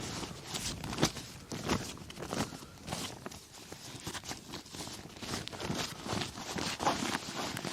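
Irregular rustling with sharp clicks and knocks as camping gear is handled and packed away, with a few louder knocks scattered through.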